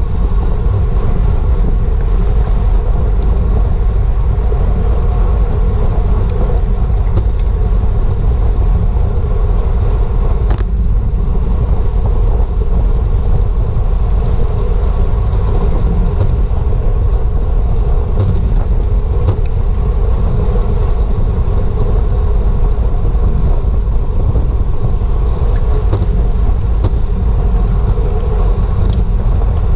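Wind rushing over a GoPro microphone and tyre road noise from a road bike at race speed, loud and steady, with a few sharp clicks now and then.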